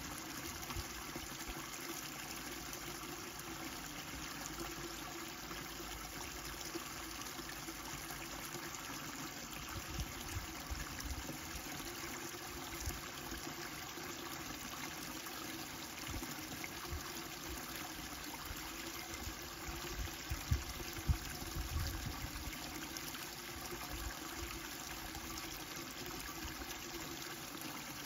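Steady sound of running water, with a few low thumps about two-thirds of the way through.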